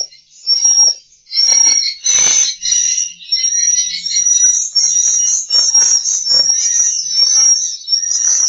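Swiftlet lure recording: a dense run of short, high-pitched swiftlet chirps and twitters with clicks, repeating over and over without pause.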